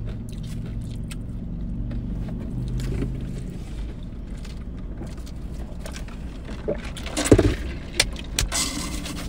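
Steady low hum of a car idling, heard from inside the cabin. Near the end come a few short, louder sounds of drinking from a fast-food paper cup.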